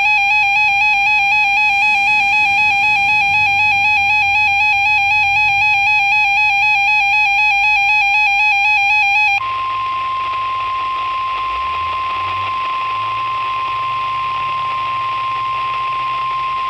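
NOAA Weather Radio alert during a Required Weekly Test. For about nine seconds a warbling, buzzy electronic alarm tone sounds, then it switches abruptly to the steady 1050 Hz warning alarm tone over radio static.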